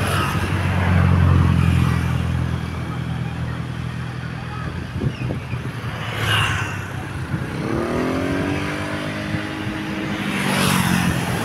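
Passing buses: a low, steady diesel engine drone, then from about eight seconds in an engine accelerating with rising pitch. There is a short rush of noise about six seconds in and again near the end.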